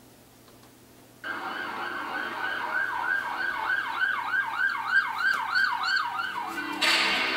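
Siren sound effect at the start of a song, played over speakers, wailing rapidly up and down about three times a second; it starts suddenly about a second in, and near the end the beat comes in with sharp drum hits.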